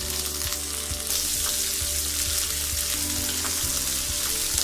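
Freshly added sliced onions sizzling in hot oil in a kadhai, stirred with a wooden spatula that scrapes and taps the pan now and then.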